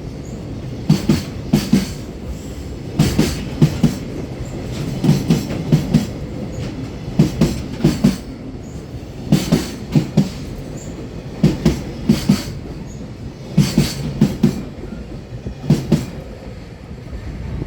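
Koki container wagons of a freight train rolling slowly over rail joints: the wheelsets clack over each joint in groups of about four, one group roughly every two seconds, over a steady rolling rumble. The clacking stops near the end as the last wagon passes.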